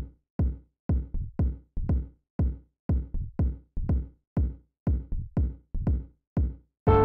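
Background electronic music: a drum-machine kick beating in a heartbeat-like pattern of paired hits, about three a second, each a short low thud that dies away quickly. Right at the end a full synthesizer and piano arrangement comes in.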